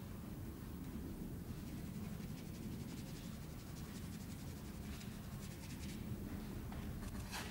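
Faint scratching of a drawing tool on paper, in runs of quick strokes over a low steady hum, with a sharp tap near the end.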